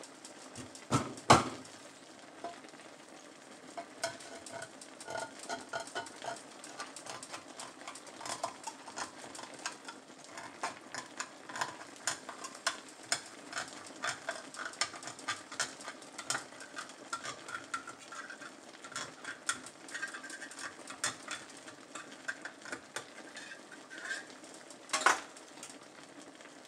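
Tilapia with tomatoes and onions simmering in a steaming frying pan, the broth bubbling with a constant scatter of small irregular pops and crackles. Two sharp knocks come about a second in, and another near the end.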